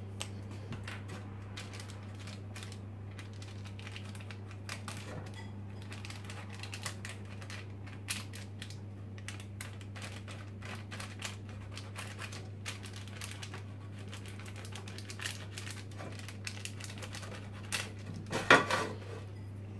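Greaseproof paper rustling and crinkling under the hand while a marker pen scratches around its edge, a stream of small ticks and scrapes with a louder crinkle near the end. A steady low hum runs underneath.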